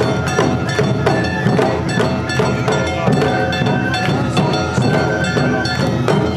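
Awa odori hayashi band playing: big and tight-headed taiko drums and clanging kane bell-gongs beating a brisk, even rhythm, with a bamboo flute carrying the melody above.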